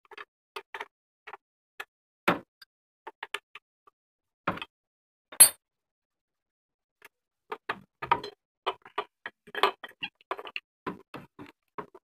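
Scattered clicks and knocks of engine parts and tools being handled while a Honda Tiger engine is worked loose from its frame. One sharp click about five seconds in is the loudest, and the clicks come thicker in the second half.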